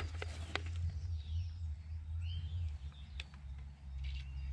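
Faint clicks from a large plastic syringe being worked to suck brake fluid out of the reservoir, over a low steady hum. A couple of short bird chirps sound in the background about a second and two seconds in.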